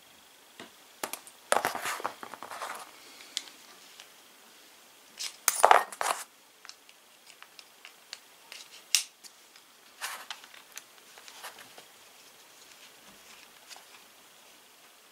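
Workbench handling noise from working on a plastic cordless mini chainsaw with a screwdriver: scattered clicks, scrapes and rustles of plastic parts and tools, the loudest bursts about a second and a half in and just before the middle.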